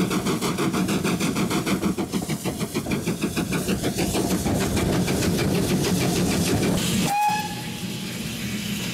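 Steam locomotive working hard, its exhaust beats coming in a rapid, regular pulse heard from the footplate. About seven seconds in the sound cuts to a quieter, steadier run with a brief whistle note.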